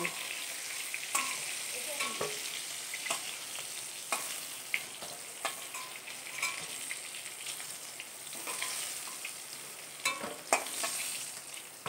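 Fried pointed gourd (patol) pieces sizzling in hot oil in a kadai, with a metal spatula scraping and tapping against the pan now and then as they are turned and lifted out. The pieces are done frying.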